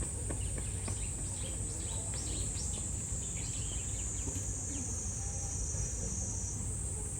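Cicadas buzzing in a continuous high-pitched drone over a low outdoor hubbub, the drone shifting slightly in pitch about six and a half seconds in.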